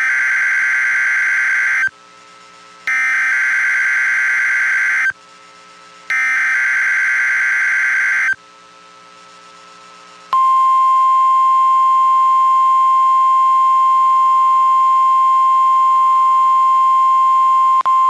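NOAA Weather Radio weekly test alert: three bursts of SAME digital header data, each a harsh buzzy chirr about two seconds long with a second's gap between them. About ten seconds in, the steady 1050 Hz warning alarm tone begins and holds.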